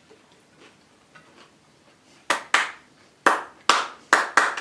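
Hands clapped together about six times, sharp and irregularly spaced, starting a little over two seconds in.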